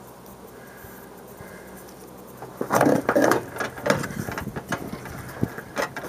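Handling noise as a raw sheep hide is pressed and shifted over a metal drum. A quick run of rubbing, scraping sounds starts about two and a half seconds in, followed by scattered sharp knocks and clicks.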